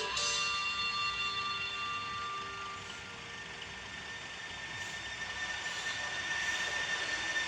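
An Indonesian bus's multi-tone 'telolet' (basuri) air horn holding a steady chord, which fades out about three seconds in. Engine and road noise follow, with a thin steady high tone.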